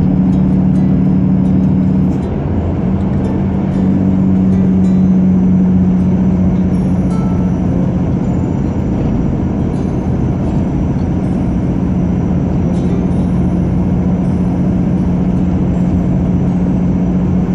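Truck engine running steadily at cruising speed with a constant low hum and tyre and road noise, heard from inside the cab; the level dips briefly about two seconds in.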